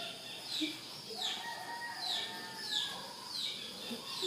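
A bird chirping: a short, high chirp that falls in pitch, repeated evenly about six times.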